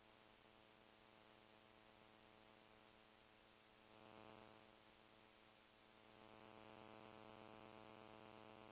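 Near silence with a faint, steady electrical hum that swells slightly twice.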